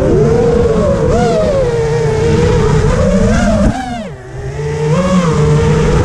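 The brushless motors and propellers of an AstroX X5 five-inch FPV quadcopter whine as it flies, the pitch rising and falling with the throttle. About four seconds in, the pitch drops sharply and the sound briefly fades as the throttle is cut, then climbs back up.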